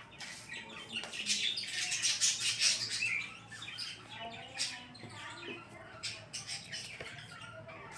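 A mother cat giving repeated short, high-pitched chirping calls to her kittens.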